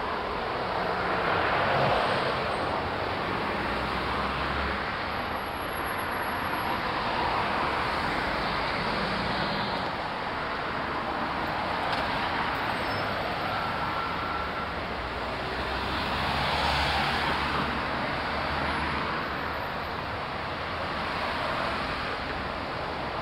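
Busy road traffic, with a red double-decker bus and cars passing close by; engine and tyre noise swells and fades several times as vehicles go past.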